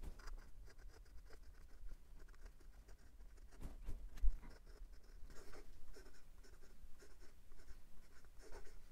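Steel broad fountain pen nib on a Kanwrite Legacy ebonite pen scratching softly across paper while cursive is written, the faint audible feedback of a wet nib, with one light knock a little before halfway.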